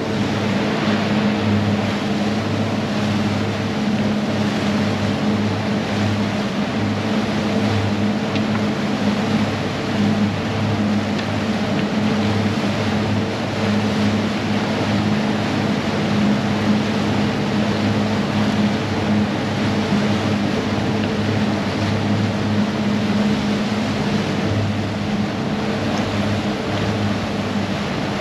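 Twin 250 hp outboard motors running steadily while trolling, a constant hum over the rush of the boat's wake.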